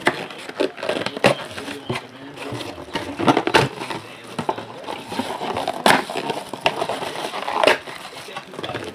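Trading card packs being torn open and cards handled: crinkling wrapper plastic with irregular sharp crackles and clicks.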